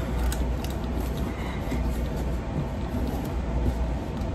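A kitchen knife being forced and worked into a very hard, firm pumpkin, heard over a steady low hum.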